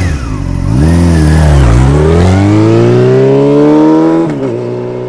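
High-revving racing engine accelerating hard through the gears. Its pitch climbs, drops at a gear change about one and a half seconds in, climbs steadily for about two and a half seconds, then drops again at another shift near the end.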